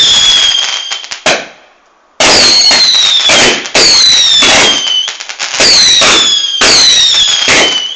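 Fireworks display finale: a rapid run of loud bangs about a second apart, each carrying a whistle that falls in pitch, with a short lull about a second and a half in.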